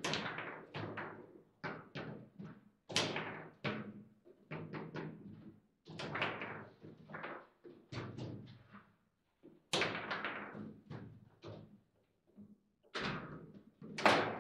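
Table football (foosball) play: irregular sharp knocks and clacks of the ball being struck by the rod-mounted plastic players and hitting the table walls. The loudest knock comes near the end.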